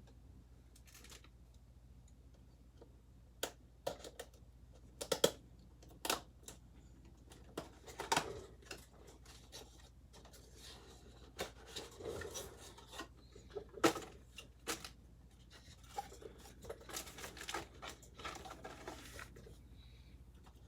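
Cardboard and plastic packaging being handled and opened, with scattered sharp clicks and short rustling and scraping sounds.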